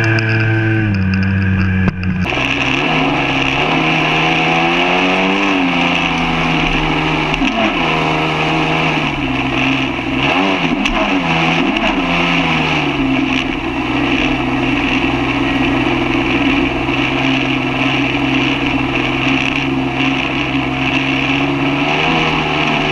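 Two-stroke Sea-Doo personal watercraft engine running at speed over a rush of water spray and wind. The sound changes abruptly about two seconds in; the engine pitch then rises and falls several times before holding steady for the second half.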